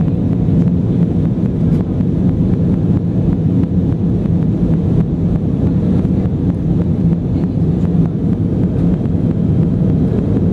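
Airbus A320 in flight, heard from inside the cabin: a loud, steady low rumble of engines and rushing air during the climb after takeoff.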